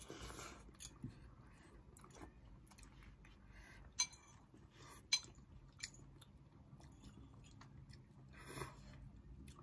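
Faint chewing and slurping of instant noodles, with metal forks clinking against plates. Two sharp ringing clinks come about four and five seconds in.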